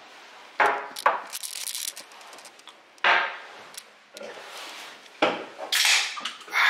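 A few short knocks and scrapes of hard objects being handled, spaced a second or two apart.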